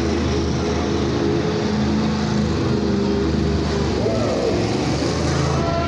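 Monster truck engine running, a steady loud drone that shifts in pitch a little as the truck drives across the arena floor.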